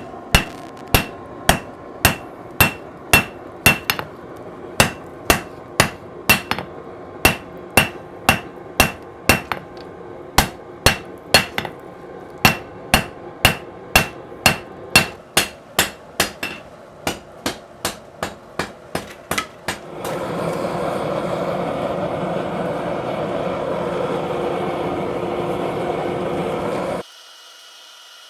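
Hand hammer striking hot leaf-spring steel on an anvil in a steady rhythm of about two blows a second, each blow ringing. The hammering then gives way to a steady rushing noise for about seven seconds, which cuts off suddenly near the end.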